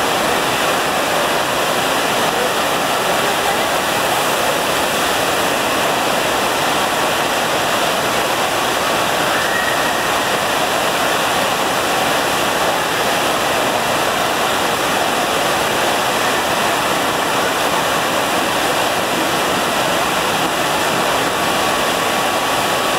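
Steady, loud rush of water pumped in a thin fast sheet up the padded slope of a sheet-wave surf simulator.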